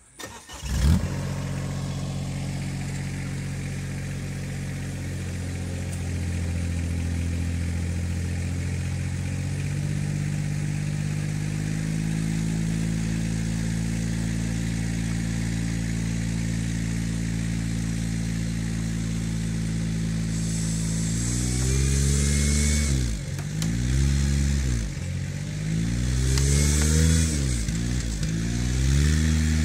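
A vehicle engine starts about a second in and runs steadily, its speed stepping up a little a couple of times. From about 21 s the revs repeatedly drop and climb again in louder surges as it strains to pull a barn wall down on a hooked line.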